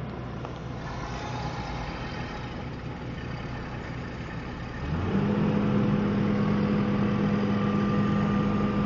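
Heavy diesel engine idling; about five seconds in it becomes louder, with a strong steady hum, and holds there.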